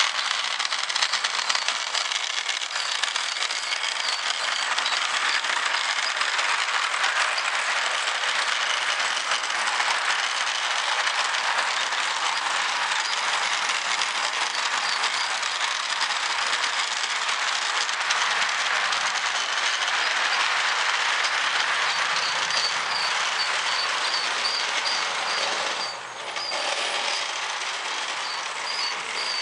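Lionel O gauge model freight train rolling along FasTrack-style track laid on a hardwood floor: a steady clatter and rumble of the metal wheels on the rails. A run of quick, light ticks comes through near the end.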